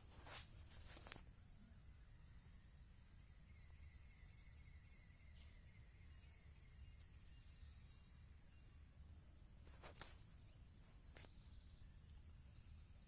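Faint, steady, high-pitched insect chorus, with a few soft knocks of the phone being handled near the start and again about ten seconds in.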